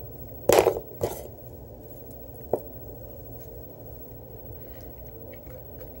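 Handling knocks and rubs close to the microphone as a plastic Bic lighter is set upright on a desk, then a single sharp click about two and a half seconds in, over a steady low room hum.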